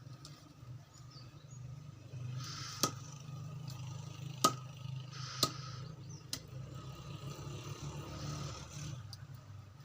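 Four sharp knocks at irregular intervals over a steady low rumble.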